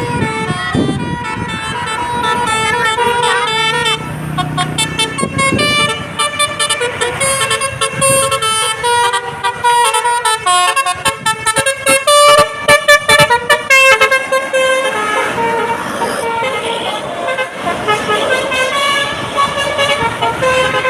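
A bus telolet horn, a Basuri multi-tone air horn, playing a melody of shifting horn notes. In the middle stretch the notes come in quick short pulses, over the low hum of a bus engine.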